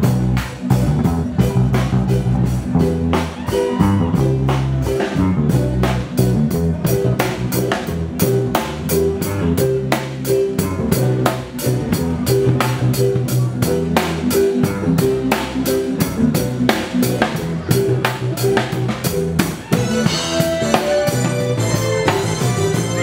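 Live band playing: a drum kit keeps a steady beat under a bass line and guitar. A higher melodic line comes in near the end.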